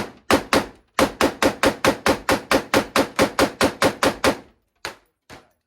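A rapid string of about seventeen semi-automatic gunshots, roughly four a second, each a sharp crack. The shooting stops, and two more spaced shots follow near the end.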